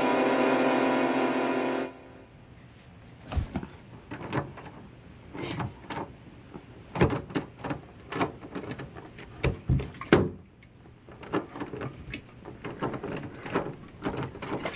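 Round metal doorknob rattled and twisted again and again, the latch and door clicking and knocking in an irregular string of sharp clacks. Music plays at first and cuts off about two seconds in.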